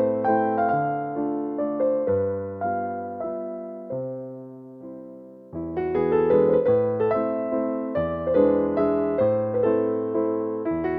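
Background piano music: a gentle melody of struck notes that thins out and fades for a few seconds, then comes back with fuller chords about halfway through.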